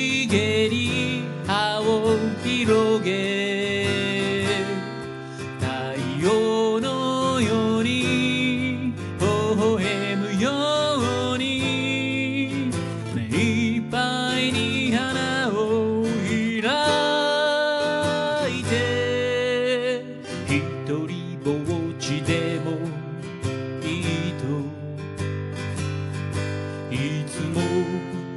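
A man singing to his own acoustic guitar accompaniment, with a wavering vibrato on held notes. Near the end the voice drops out and the guitar strums on alone.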